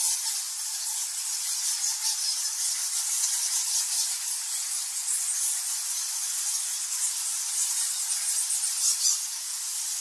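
Many bats squeaking and chittering at once: a dense, continuous, high-pitched chatter with no low sounds under it.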